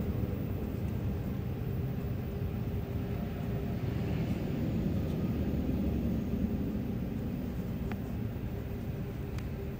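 1956 Chevrolet pickup's V8 engine idling steadily, heard from close by in the open engine bay.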